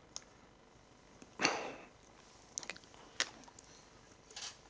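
A quiet pause: a breath about a second and a half in, then a few small clicks and crinkles from a plastic water bottle being picked up and drunk from.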